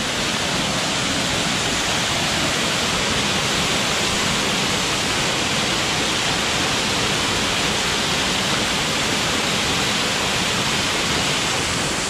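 Waterfall on Walden Beck heard from close beside it: a loud, steady rush of falling water.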